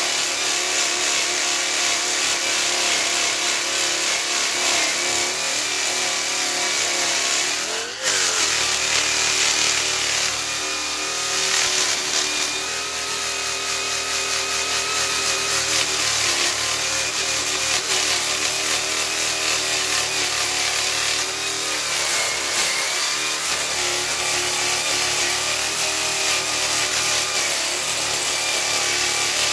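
A handheld power tool spins a 120-grit hook-and-loop sanding disc against jujube wood: a steady motor whine with the abrasive scuffing over the grain. The pitch dips sharply and recovers about eight seconds in, and sags again briefly a little past twenty seconds as the disc is pressed into the wood.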